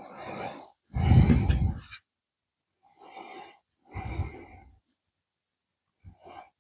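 A person breathing close to the microphone: two slow breaths, each a softer intake followed by a louder outward breath that buffets the microphone, then a brief faint sound near the end.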